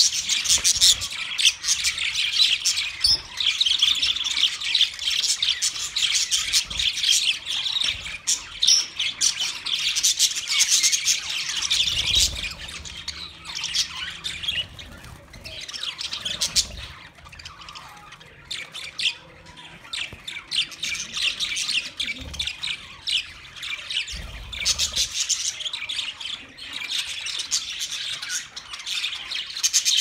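A flock of budgerigars chattering and chirping together in a dense, continuous warble of high calls. The chatter thins out for a few seconds in the middle, then picks up again.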